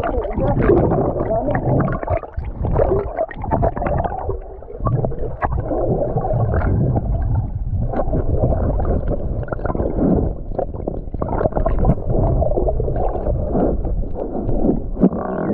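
Muffled water sloshing and gurgling, with scattered knocks and splashes, as someone moves through shallow sea water.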